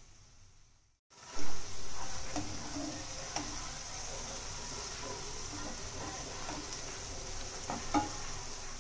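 Chopped onions and tomatoes frying in oil in a non-stick pan, sizzling steadily while a spatula stirs and scrapes through them; the tomato-onion masala is cooking down in the oil. The sizzling starts about a second in, with a brief loud clatter just after.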